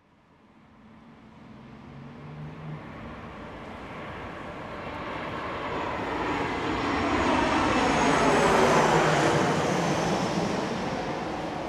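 Airplane passing low overhead. Its noise swells slowly from nothing to a peak about eight seconds in, then begins to fade, with a faint falling whistle near the loudest point.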